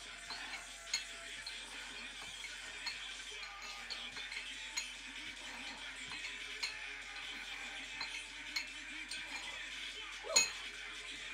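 Metal dumbbells clinking and knocking during lunging curls, in sharp irregular clicks every second or two, with one louder knock near the end. Faint background music plays under them.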